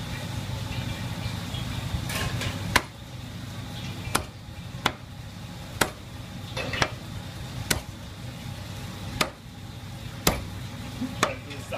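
Meat cleaver chopping glazed fried chicken on a thick wooden chopping block: about nine sharp single chops, starting about three seconds in, roughly one a second. A low steady hum runs underneath.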